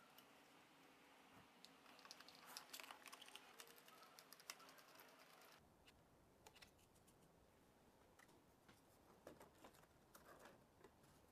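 Near silence, with scattered faint clicks and taps of small plastic parts being handled and fitted. The clicks come in a busy cluster in the first half and again near the end.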